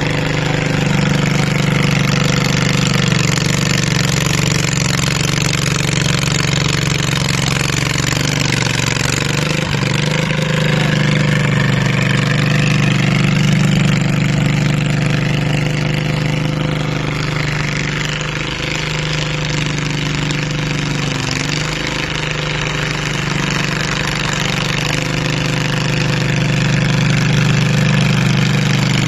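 Small garden tractor's engine running steadily while the tractor pushes snow with a front plow blade.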